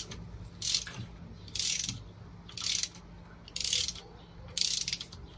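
Hand ratchet wrench clicking on its back-strokes as a bolt is turned, five short rasping bursts about a second apart.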